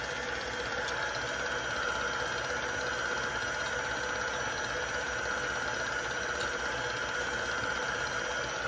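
Electric stand mixer running steadily, its motor humming at an even pitch as it whips creamed butter and sugar.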